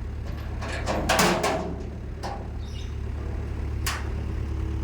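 Diesel engine idling steadily, with a few sharp metal knocks and clanks, the loudest cluster about a second in and another single knock near the end.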